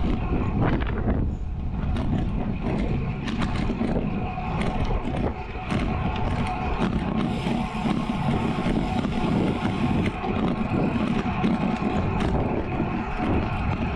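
Wind rushing over an action camera's microphone on a road bike moving at about 30 km/h, with the steady noise of the tyres rolling on the runway pavement.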